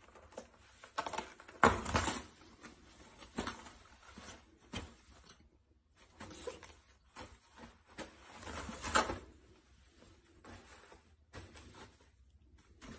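Toilet paper rustling and scraping as a cat paws at the roll and pulls sheets off it, in irregular swishes, with louder ones about two seconds in and again near nine seconds.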